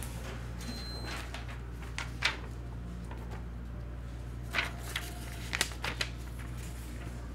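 A steady low electrical hum, with a few short clicks and rustles of paper being picked up and handled on a desk, grouped about two seconds in and again from about four and a half to six seconds in.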